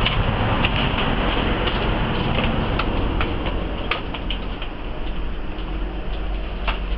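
Passenger train running, heard inside the carriage: a steady rumble and hiss with irregular sharp clicks and rattles.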